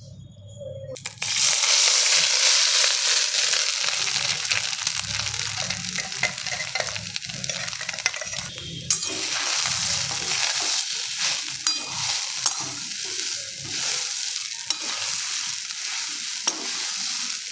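Ground boiled chicken sizzling as it goes into hot mustard oil in a metal kadai; the hiss starts suddenly about a second in and carries on as the mince is fried and stirred, with a few sharp spatula clicks against the pan.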